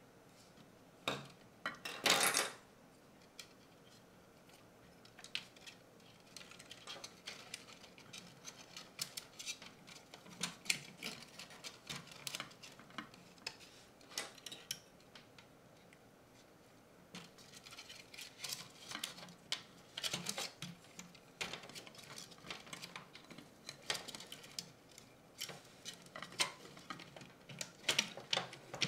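Close handling of small plastic parts and wires: light clicks, taps and rustles as a circuit board and its wiring are fitted into the plastic chassis of a Teenage Engineering PO-80 Record Factory. A louder scrape comes about two seconds in, and there is a short pause near the middle.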